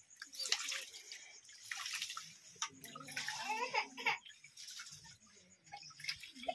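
Raw rice being washed by hand in water in a steel bowl: the grains are rubbed and swished, giving irregular bursts of splashing and sloshing.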